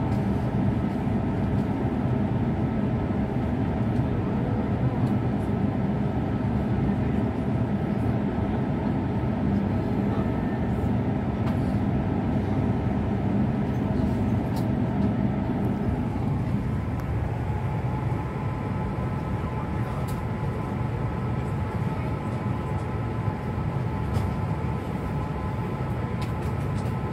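Inside an E6-series Komachi Shinkansen car pulling into a station: a steady rumble of wheels and running gear that dies away a little over halfway through as the train comes to a stop. After that, a steady hum with a few light clicks remains.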